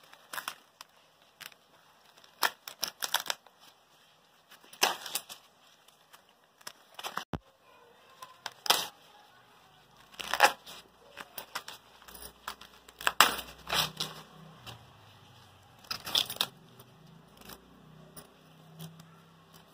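Green husks being torn and peeled off an ear of fresh sweet corn by hand, with the silk pulled away: irregular crisp rips and rustles, one every second or so with short quiet gaps between.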